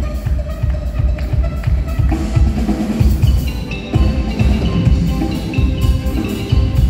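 Live band playing an instrumental passage: a drum kit keeps a steady beat with deep kick-drum hits, under sustained melodic lines.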